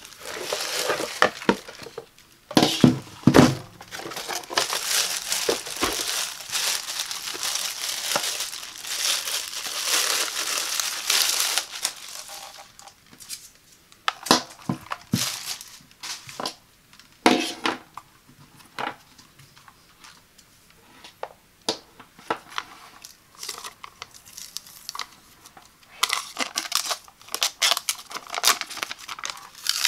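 Clear plastic bag crinkling and rustling as a steam iron wrapped in it is lifted out and unwrapped. It is dense and continuous for the first dozen seconds, then comes in scattered crackles and taps. Near the end it thickens again as a thin protective film is picked at and peeled from the soleplate.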